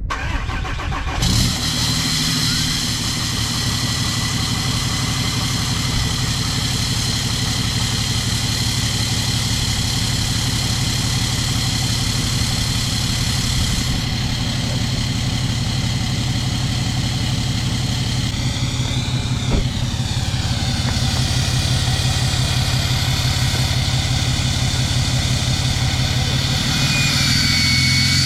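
6.7 Cummins inline-six turbodiesel starting from cold and catching about a second in, then idling steadily with an even beat of firing pulses. The owner is listening for a misfire.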